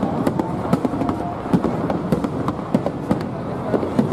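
Aerial fireworks bursting in quick succession: a dense run of sharp bangs and crackles over a continuous low rumble.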